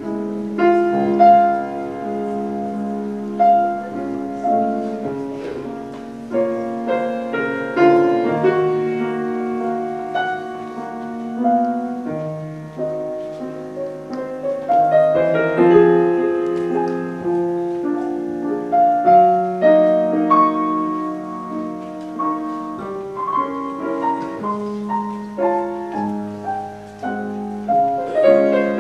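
Solo piano music: a classical-style piece played continuously, with chords and a melody line.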